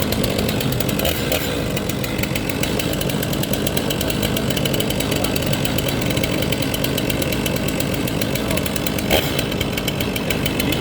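Stihl chainsaw's two-stroke engine running steadily at speed, a fast, even buzz with no marked revving up or down.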